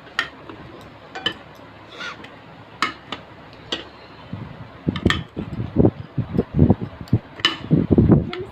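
Opal glass dinnerware clinking sharply several times as pieces are handled. From about halfway there is a denser run of louder, dull knocks and handling noise.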